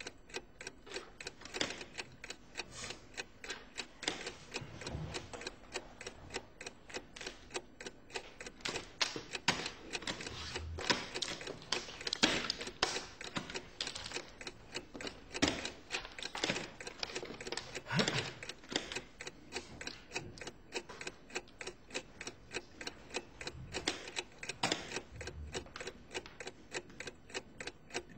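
Dense, rapid mechanical clicking and clacking, several sharp clicks a second, uneven in loudness and loudest around the middle, with a few soft low thuds.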